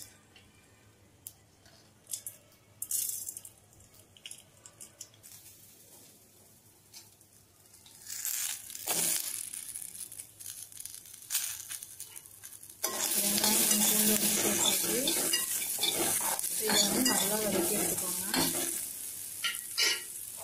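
Shallots, garlic and dry red chillies sizzling in hot coconut oil in a metal kadai, with scrapes and clicks of a spoon stirring them. The pan is nearly quiet at first, with a few faint clicks, and the sizzling starts suddenly about two-thirds of the way through and is loud.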